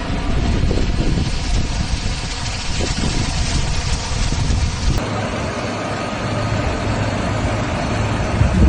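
Loud rushing noise of floodwater and wind, with a vehicle engine humming steadily in the second half.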